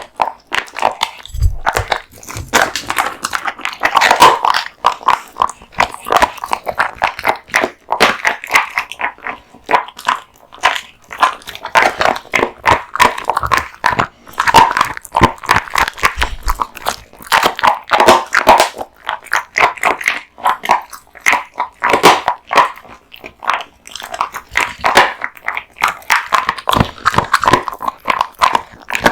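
An American Bully dog chewing raw meat and bones: a loud, dense run of crunching bites and wet chewing.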